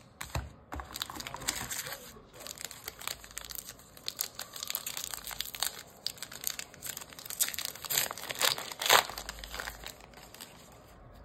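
Trading card pack wrapper being handled and torn open by hand: irregular crinkling and crackling that stops shortly before the end.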